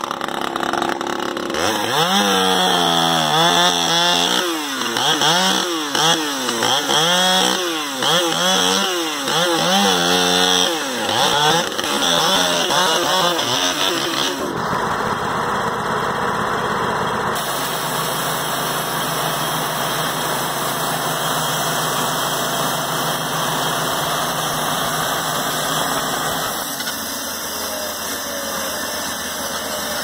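Chainsaw cutting into a large pine log, its engine pitch dipping and rising over and over for about a dozen seconds. It then stops suddenly, leaving a steady engine idle for the rest.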